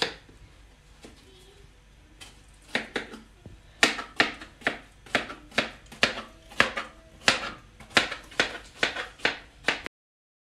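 Kitchen knife chopping peeled melon into small cubes on a plastic cutting board: a quick run of sharp knocks, about two or three a second, starting about three seconds in and stopping abruptly near the end.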